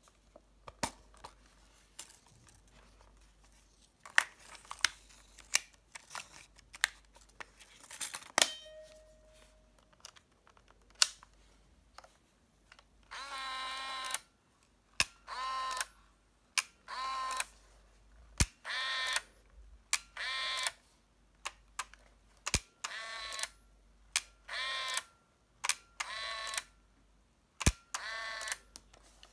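Olympus Trip AF 60 compact 35mm film camera being handled and operated: scattered sharp clicks of its controls and body, then about ten short motor whirs, each under a second, as the shutter is fired and the motorized film advance winds on.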